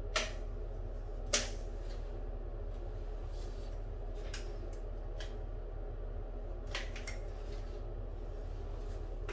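Sharp clicks from a caulking gun being handled, two loud ones in the first second and a half and a few fainter ones later, over a steady low hum.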